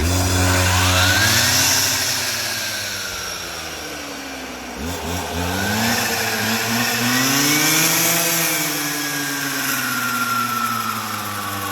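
Power saw cutting wood, its motor running continuously with a high hiss. The motor's pitch sags and recovers several times as the blade bites into the wood and frees up again, with a sharp dip about five seconds in.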